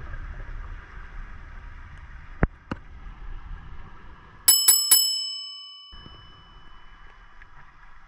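Three quick, bright bell-like chimes about halfway through, each with a clear ringing tone that carries on for about a second, while the steady underwater rush cuts out around them. Before them, a low underwater rush with two short clicks.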